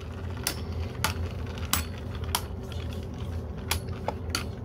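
Two 3D-printed plastic beyblades spinning in a stadium and repeatedly clashing: sharp clicks, roughly one every half second to a second, over a steady low hum.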